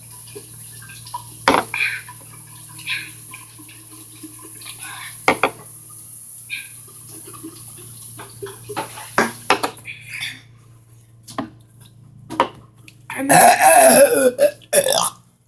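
Scattered small clicks and clinks, then about thirteen seconds in one long, loud burp lasting about a second and a half, meant as the biggest burp of all.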